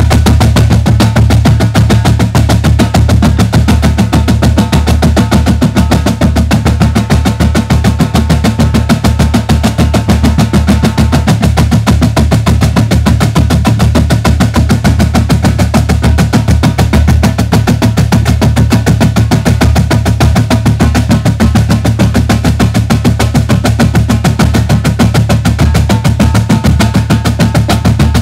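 A marching drumline of snare drums, tenor drums and bass drums playing loud, rapid continuous strokes together.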